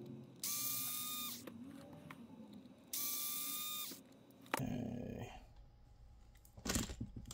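Small electric screwdriver with a 1.5 mm hex bit running twice, about a second each time, backing screws out of a plate. Its whine rises briefly as it spins up and then holds steady. A short clunk follows, and near the end a brief rattle of small parts.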